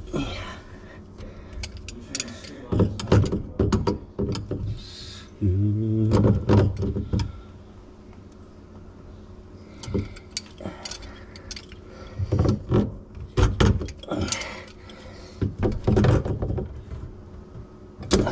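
Hands and tongue-and-groove pliers working a plastic sink-drain P-trap: scattered clicks, knocks and rattles of the tool against the pipe fittings, with a short low pitched sound about six seconds in.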